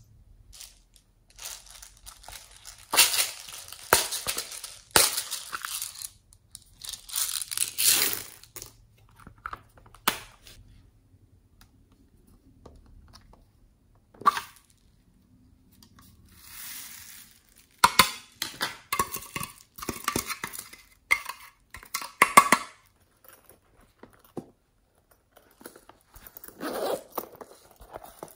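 Close handling of small plastic containers of glitter, sequins and foam beads being opened and shaken out over slime: irregular bursts of rustling and scattering, with sharp plastic clicks now and then.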